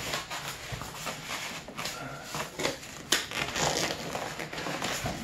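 Foam packing and cardboard rubbing, scraping and rustling as a tight-fitting computer case is worked out of its box, with a sharp knock about three seconds in.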